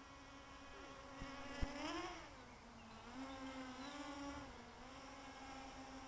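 Morphite 180 micro quadcopter's brushless motors and propellers buzzing, the pitch rising and falling with throttle. Two sharp clicks come a little over a second in, and just after them the motors rev up briefly, then settle and surge again.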